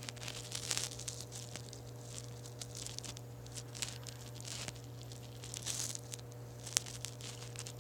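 Handling noise from a phone being tapped and scrolled close to its own microphone: irregular light clicks and brief scuffing rubs, over a steady low hum.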